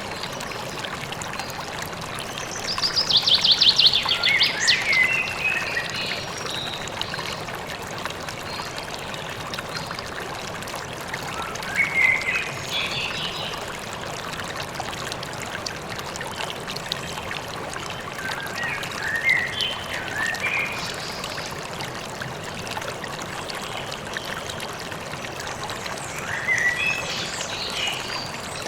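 A stream running steadily, with small birds chirping over it: a rapid trill a few seconds in, then scattered chirps.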